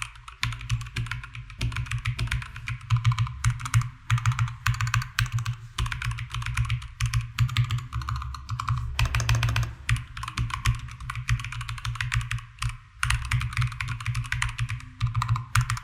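Fast, continuous typing on a Keychron K2 mechanical keyboard with Gateron Brown tactile switches: a rapid clatter of keystrokes with a few short pauses, about a second and a half in, around nine seconds and around thirteen seconds.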